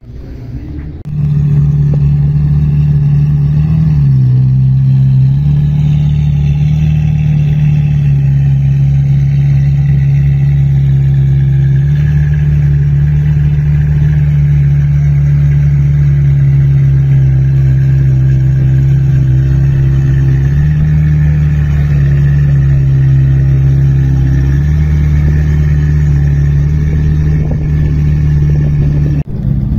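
Ferrari F355's V8 engine running at a steady fast idle, its pitch stepping slightly down and back up every few seconds.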